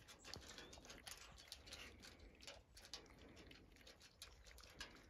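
Dogs eating leftover dry sheep feed from a metal trough: faint, quick, irregular crunching and clicking.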